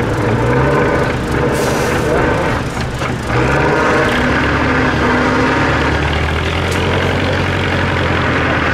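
An 8x8 trial truck's diesel engine works under heavy load on a steep mud bank, its revs rising twice. A short hiss of air comes about a second and a half in.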